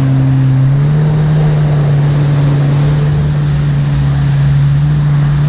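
Jet ski engine running at speed, its pitch stepping up about a second in and then holding steady.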